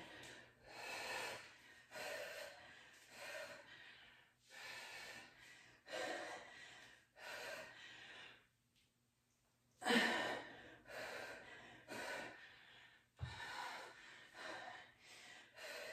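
A woman breathing hard from exertion during a kettlebell squat set: heavy exhalations, about one a second, with a brief pause about nine seconds in. A single dull thump comes about thirteen seconds in.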